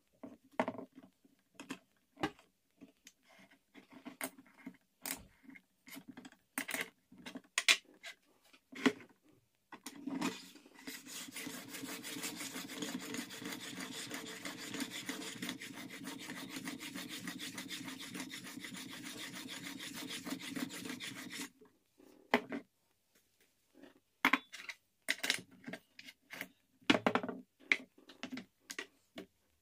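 Sharpening stone worked back and forth over a plane iron's edge in a hinged sharpening jig, a steady scraping that runs from about a third of the way in to about two thirds. Before and after it come short clicks and knocks as the jig, stone and iron are handled.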